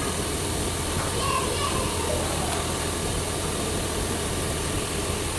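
Steady machine-shop noise: a constant low hum under an even hiss, from CNC machining equipment running, with faint voices in the background.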